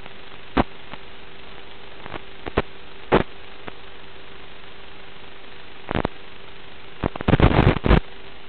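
Radio static from an analog FPV video receiver: a steady hiss with a constant hum under it, broken by sharp crackles. The crackles come singly at first and then come thick and fast for about a second near the end.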